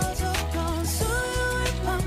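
Background pop song: a sung melody over a bass line and a steady drum beat.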